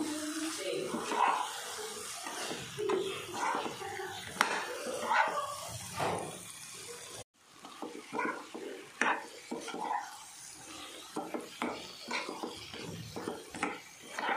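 A spatula stirring and scraping thick masala-coated chicken around a non-stick pan, in irregular strokes with clinks against the pan. The sound cuts out for a moment about halfway through.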